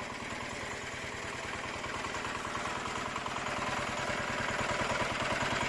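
Single-cylinder R192 diesel engine of a Shtenli 12 hp walk-behind tractor running steadily with an even, rapid chug, growing slightly louder.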